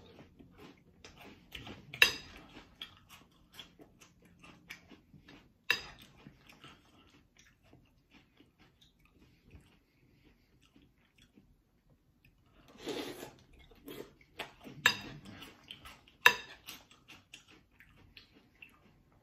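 Metal spoon clinking and scraping against a glass bowl of milk-soaked Cap'n Crunch's Crunch Berries cereal, with crunchy chewing in between. A few sharp clinks stand out, one about two seconds in and two close together near the end.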